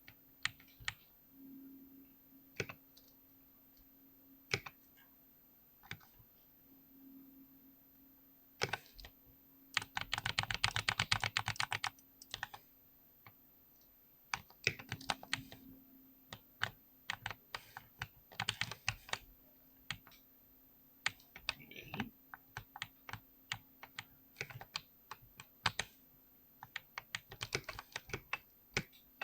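Typing on a 65% keyboard: scattered single keystrokes broken by fast flurries of rapid key presses, the densest run about ten seconds in.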